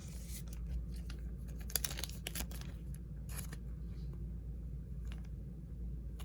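Trading cards being handled and flipped through: short, scattered slides, flicks and soft clicks of card stock against card stock, over a steady low background hum.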